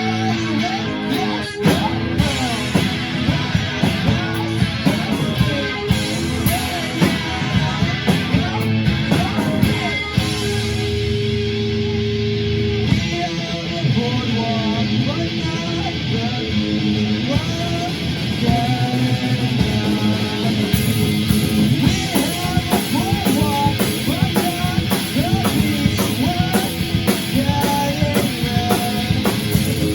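Guitar-driven rock music with a singing voice.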